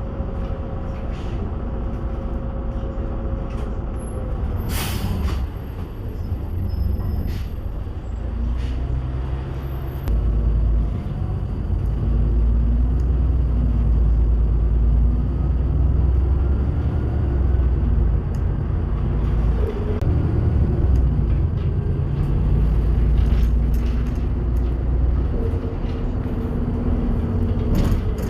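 Bus engine and drivetrain running, with whining tones that fall and rise with road speed. A short burst of air-brake hiss comes about five seconds in. Around ten seconds in the engine note gets heavier and louder as the bus pulls under load.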